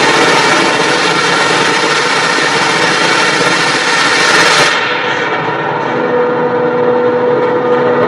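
Hydraulic forging press at work on a hot steel billet: a loud hissing rush for the first five seconds or so, then a steady machine hum.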